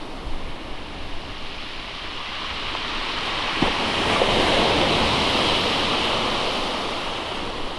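Sea surf breaking and washing up a pebble beach: a steady hiss that swells to its loudest about halfway through, then eases off.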